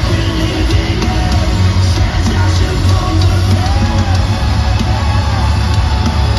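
Metalcore band playing loud and live through a stadium PA: distorted guitars, heavy bass and drums, with vocals over the top.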